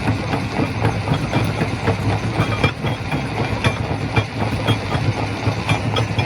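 Quarry primary rock crusher running: a steady low drone with frequent irregular knocks and clacks of stone.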